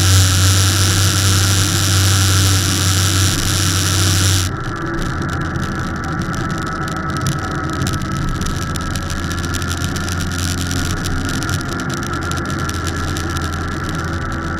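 Motorcycle engine running at road speed with wind rush over the windscreen and microphone. About four and a half seconds in, the wind hiss and the engine hum both drop suddenly to a quieter, steady level.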